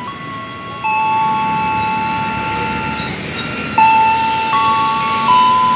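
Ex-Musashino Line JR 205 series electric multiple unit moving past: an electric whine from its traction inverter and motors, a set of steady tones that jump in pitch several times, over the rumble of the train running on the track.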